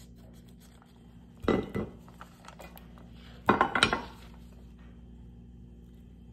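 Clattering and knocking against a ceramic baking dish in two short bursts, about a second and a half in and again about three and a half seconds in, as precooked short ribs are tipped out of a plastic pouch into it.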